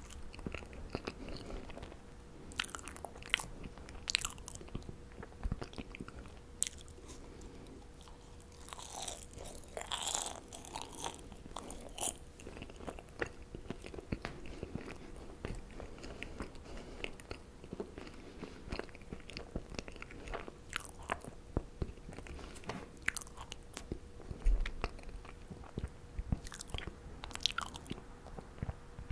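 Close-miked mouth sounds of a person biting and chewing marshmallows: irregular sticky smacks and clicks, busiest about a third of the way in, over a faint steady hum.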